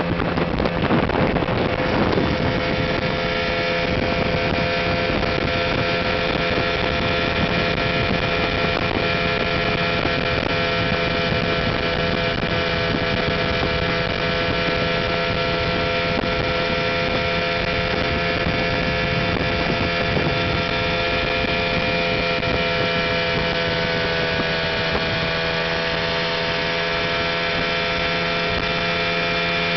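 West Bend Commodore 18 hp two-stroke outboard motor running steadily at speed under way, with wind on the microphone. The engine note dips slightly in pitch near the end.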